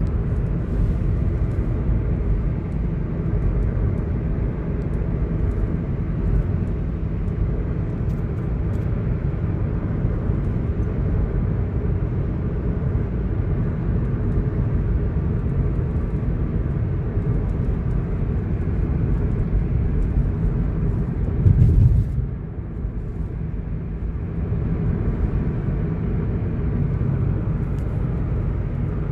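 Steady road and drivetrain rumble heard inside a moving Honda City, with faint, irregular ticks on top: the ticking and rattling the car is being checked for. A louder bump about 21 seconds in.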